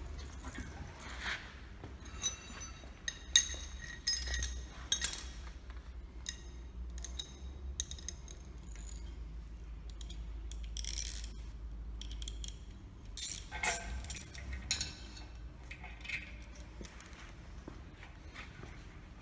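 Steel roller chain and a spanner clinking and jingling against the sawmill's steel rail and a concrete floor as the chain is handled and hooked on, in irregular bursts of small metallic chinks. A low steady hum runs underneath.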